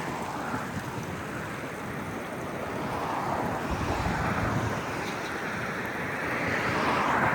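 Small stream's water running in a steady rushing hiss, with road traffic in the background. The sound swells briefly about three seconds in and again near the end.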